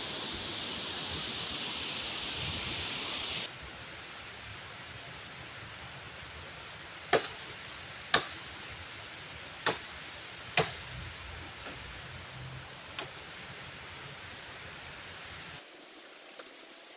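Steady wind noise, then a quieter stretch with five sharp cracks or knocks at irregular intervals over about six seconds, the first four the loudest.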